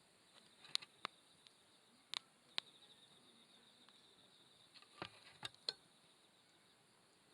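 Faint campfire crackling, with several sharp, scattered pops of burning wood, over a steady high trill of insects.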